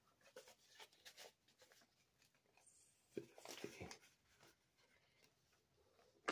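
Faint rustling of paper banknotes being handled and slipped into a clear plastic cash envelope, a little busier about three to four seconds in.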